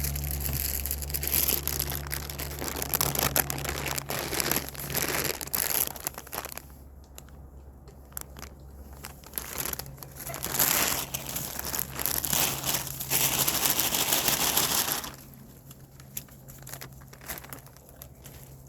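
A plastic bag crinkles and rustles as it is handled, in two long stretches with a quieter gap between them. A low steady hum runs underneath.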